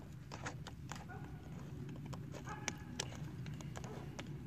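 Faint, scattered clicks and light scrapes of a screwdriver turning the screw of a hose clamp on a plastic air intake tube.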